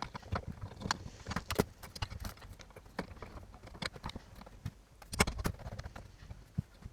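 Irregular light metallic clicks and knocks of motorcycle engine parts being handled and fitted together, with a small cluster of knocks about five seconds in.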